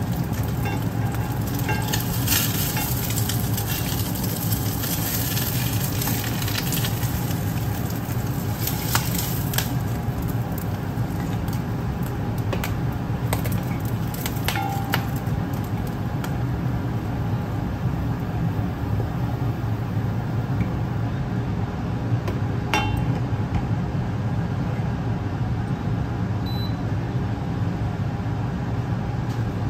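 An egg sizzling in a hot cast iron mini wok, the sizzle strongest in the first ten seconds and then fading. A spatula scrapes and clicks against the iron several times, while a steady low hum runs underneath.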